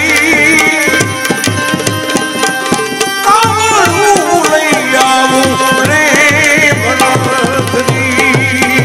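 Male voice singing a Gujarati bhajan with vibrato and melodic slides, over steady harmonium chords and fast tabla strokes.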